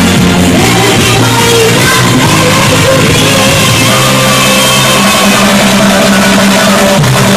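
Loud live pop music: a singer with band accompaniment over a steady bass line.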